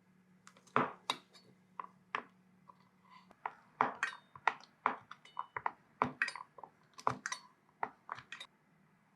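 Kitchen utensils and dishes clinking and tapping irregularly, about two or three light strikes a second, some with a brief ring, over a low steady hum.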